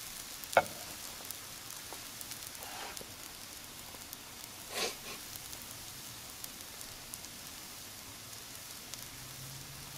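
Buttered naan cooking on a charcoal grill grate over glowing coals: a steady sizzling hiss with scattered small crackles. A sharp click about half a second in.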